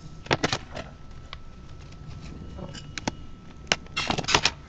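Action figure packaging being handled and pried at: sharp crackles and clicks in short clusters, the densest group near the end.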